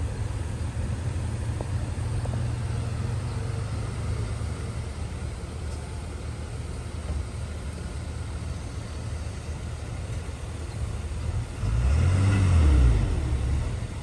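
Diesel engine of heavy earthmoving equipment running steadily at a low pitch. Near the end it revs up and back down briefly, and this is the loudest part.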